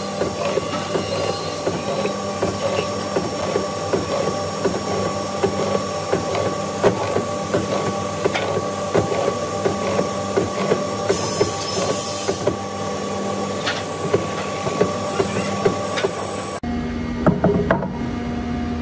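Drill press running, its spiral bit boring into a wooden frame held in a cross-slide vise, with a dense crackle of cutting and chips over the steady motor tone. About three-quarters of the way through it cuts abruptly to a different steady hum with a few knocks.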